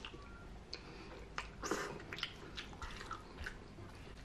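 Close-miked wet eating sounds from slurping and chewing spaghetti: a string of short wet smacks and clicks, with a longer slurp of noodles a little under two seconds in.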